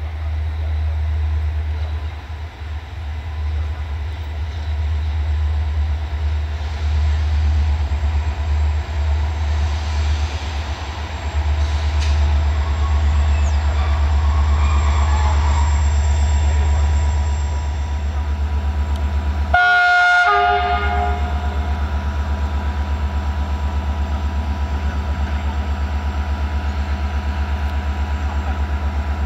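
Diesel-electric locomotive with a General Motors engine running with a steady low rumble as it approaches with its train. About two-thirds of the way in it gives one short horn blast, about a second long.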